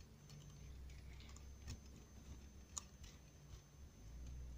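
Faint clicks and light sliding of brass tubes as a scale model gun assembly is pushed out by its push-pull steel cable, with two sharper ticks about a second and a half and nearly three seconds in.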